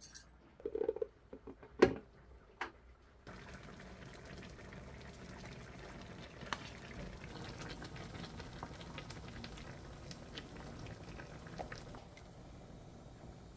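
A few knocks and a short clink of a metal whisk against a bowl, then from about three seconds in a spicy braised chicken simmering in a wok: a steady bubbling hiss with small pops.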